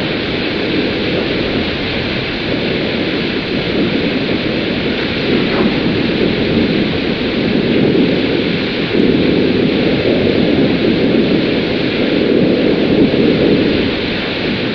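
A sound effect of loud, steady rushing noise, like a roar, that starts abruptly out of silence and holds without a clear pitch.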